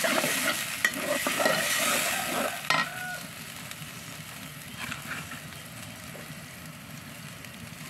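Hot water hitting the hot oil and fried masala in a metal pot sizzles loudly, with a metal spoon scraping and clicking against the pot as it is stirred. After about three seconds the sizzle dies down to a quieter, steady simmer.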